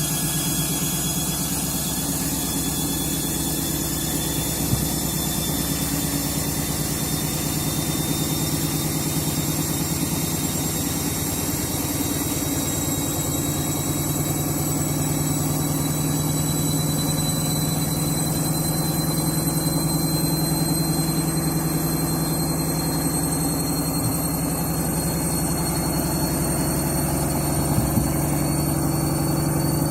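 Washing machine on its final 1200 rpm spin, the motor whine rising slowly in pitch as the drum speeds up over a steady hum, with a knock about five seconds in and another near the end. The load is out of balance and the drum is shaking hard.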